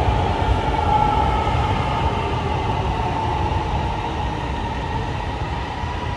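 Lahore Orange Line metro train pulling into a station and slowing to a stop: a low rumble of wheels on rail with a steady whine above it, getting gradually quieter.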